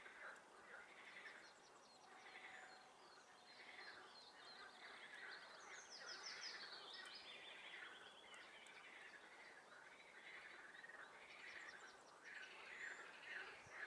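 Faint chorus of frogs calling over and over from a swamp, with songbirds singing over them; a fast, high trilling bird song is loudest in the middle.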